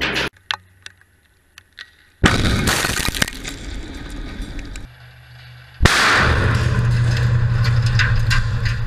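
Explosive blast hitting glazed windows: a sudden loud blast about two seconds in and another about six seconds in, each followed by glass breaking and cracking. Before the first blast there is a near-quiet lull with a few faint clicks.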